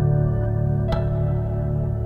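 Ambient background music: sustained held tones with a single struck note about a second in.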